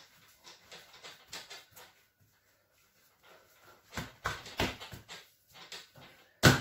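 Hands pressing and patting a large round of bread dough flat on a floured board: soft pats at first, a run of louder thumps from about four seconds in, and one sharp slap near the end.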